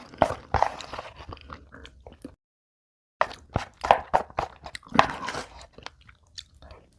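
Close-miked chewing and crunching of food, with uneven crackly bites, broken by a brief patch of dead silence about a third of the way in.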